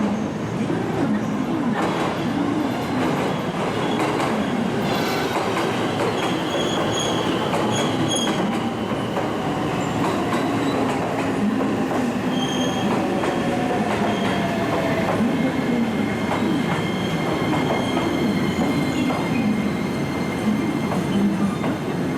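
A JR West electric train moving along the platform with a steady rumble. Its wheels give intermittent high squeals and click over the rail joints. A motor whine falls slowly in pitch partway through, as the train slows.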